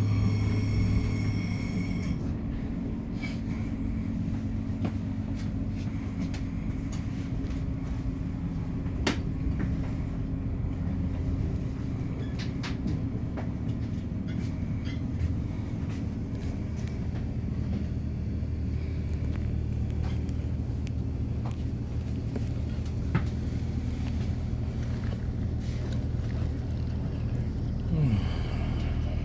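Regional train heard from inside the carriage, running over the station tracks with a steady low rumble and a few sharp clicks and knocks from the wheels. A high whine stops about 2 seconds in.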